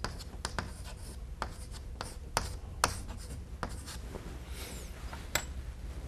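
Chalk writing on a blackboard: a series of sharp, irregular taps and short scrapes as an equation is chalked up, with a softer, longer scratch about four and a half seconds in.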